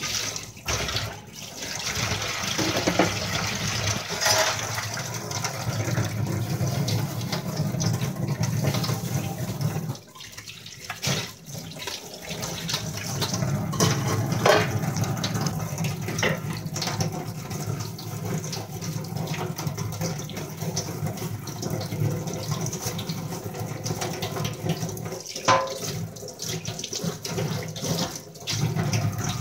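Kitchen tap running into a sink while dishes are washed by hand, with a few sharp clinks of utensils. The running water stops for about two seconds a third of the way in, then runs on.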